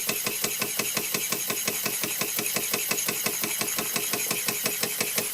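Bing 10/12/2 toy steam engine from 1926 running at speed, its single cylinder chuffing steam out of the valve in an even, rapid beat of about eight chuffs a second over a steady hiss.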